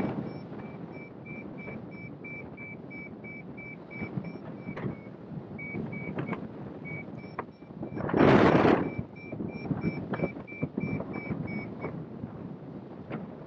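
Hang glider variometer beeping in quick, high-pitched pulses, about three a second, the tone it gives while climbing in lift; the beeping pauses briefly midway and stops about twelve seconds in. Steady wind rush on the microphone underneath, with a loud gust about eight seconds in.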